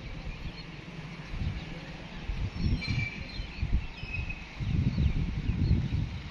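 Small birds chirping in short, gliding calls over an irregular low rumble that swells about two and a half seconds in and again near five seconds.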